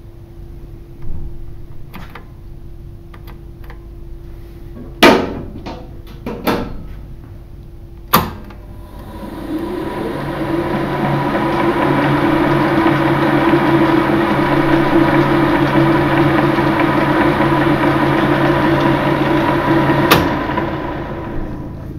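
Boxford metal lathe: a few sharp knocks, then the spindle and chuck start up about nine seconds in and run steadily with a hum and whine, stopping near the end.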